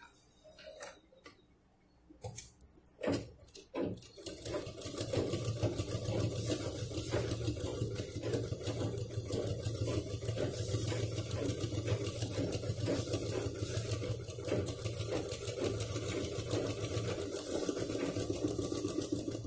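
Sewing machine stitching a seam along the zipper of a fabric pouch. A few clicks in the first seconds, then the machine starts about four seconds in and runs steadily with a rapid, even stitching rhythm.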